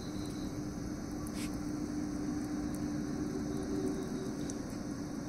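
Electric table fan running at full speed, blowing onto a charcoal grill's coals: a steady whir of rushing air with a continuous motor hum.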